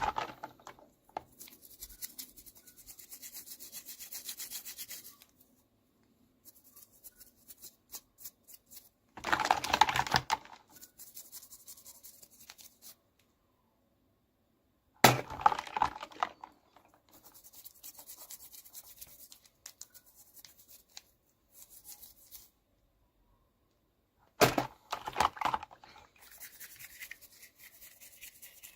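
Close-up unboxing handling: plastic packaging and small toy pieces being rubbed, crinkled and clicked. There are three louder crackly bursts, near the middle, just past halfway and near the end, with softer rubbing and scattered clicks between.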